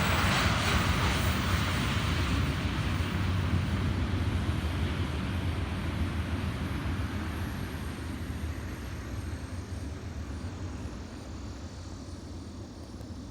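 Freight train of tank cars rolling past and away on the rails, a steady low rumble that fades gradually as it recedes.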